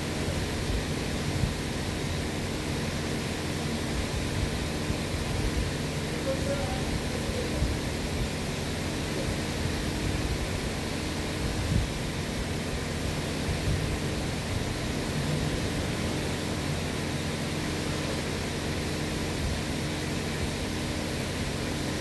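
Steady car-repair-shop background noise: an even rushing hiss with a low hum, and a few faint knocks, the sharpest about twelve seconds in.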